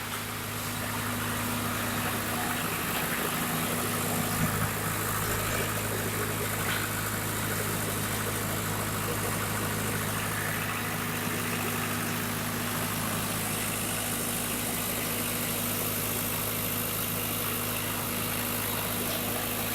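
Diesel engine of a drum wood chipper running steadily, with a brief small surge about four and a half seconds in.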